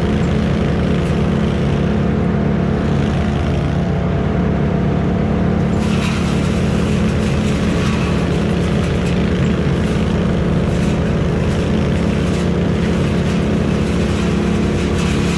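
Heavy engine running steadily at a constant speed, with irregular clattering and crackling joining in about six seconds in.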